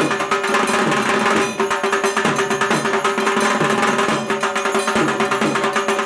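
Dhak, a large Bengali barrel drum, beaten with thin sticks in a fast, continuous rhythm.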